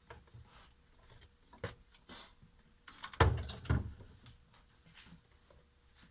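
A few clicks and knocks from parts and tools being handled on a workbench, the loudest a heavy clunk a little over three seconds in, followed by another about half a second later.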